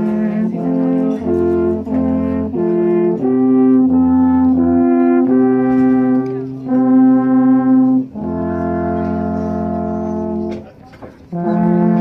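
Three alphorns playing together in harmony: a slow tune of held notes, the later ones longer, with a brief pause near the end before the next phrase begins.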